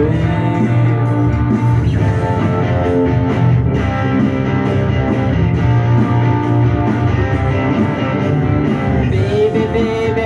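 Punk rock band music: a guitar-driven instrumental passage with bass and drums, cymbals struck at a steady beat, and no singing.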